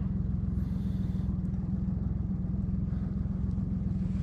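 A boat's engine running steadily at low revs, as a low, even hum of rapid pulses. There is a brief faint hiss about a second in.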